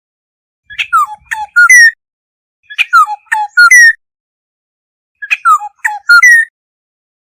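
Black-hooded oriole (Oriolus xanthornus) calling: three phrases of a few quick, fluty notes that slur downward, each phrase about a second long and one every two and a half seconds or so.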